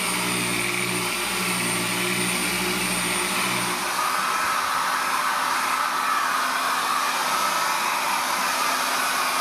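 Handheld wet angle grinder running with a stonemason's polishing stone, polishing aragonite. A steady motor whine with rushing noise; about four seconds in its low hum drops away and a brighter, higher sound takes over.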